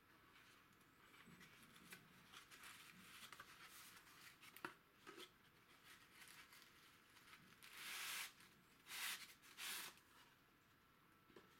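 Faint rustling and scraping of an old cardboard valve box as its end flap is opened, with a couple of light clicks. Then three short scraping rushes as the corrugated cardboard sleeve slides out of the box.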